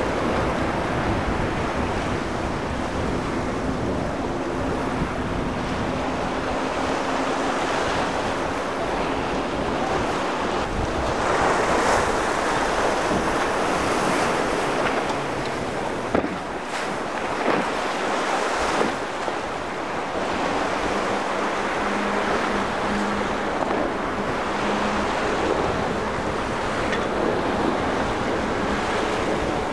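Choppy inlet water and surf rushing steadily, with wind buffeting the microphone. A faint drone of outboard motors from boats running through the waves sits under it early on and again past the middle.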